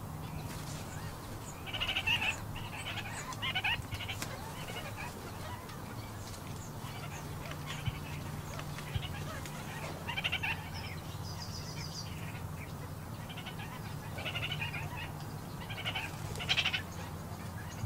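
A parrot calling in short, scattered bursts of squawks and chatter, the loudest near the end, over a steady low hum.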